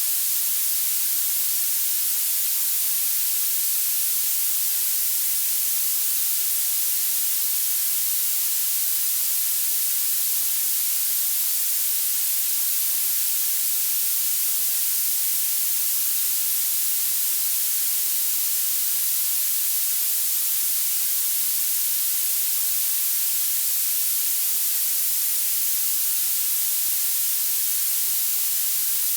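Violet (purple) noise: a steady, high-pitched hiss with its energy climbing toward the top of the range and almost no low end.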